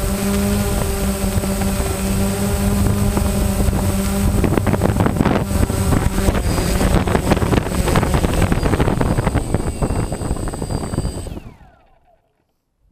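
DJI Phantom quadcopter's motors and propellers humming steadily while it hovers. About four seconds in the hum turns rough and full of rapid ticks as the drone comes down into the grass, and after about eleven seconds the motors wind down in a short falling whine and stop, leaving near silence.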